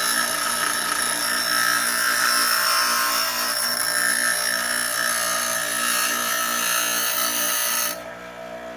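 Metal latch arm being ground on a powered grinding wheel: a steady grinding over the motor's hum that stops about eight seconds in, as a little metal is taken off the end of the arm.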